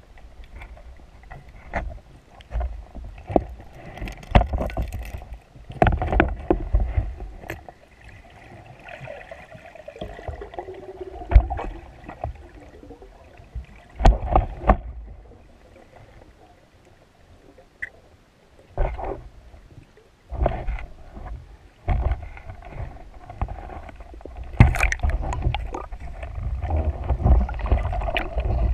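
Muffled underwater sound through a camera housing: water rushing and sloshing past in irregular surges as a freediver swims, with sharp knocks and clicks from the gear. It grows louder and busier toward the end.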